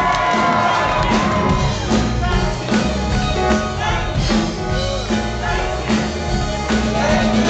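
Live gospel band playing, with a woman singing a long held note into a microphone that ends about two seconds in; the band then keeps a steady beat while people clap along.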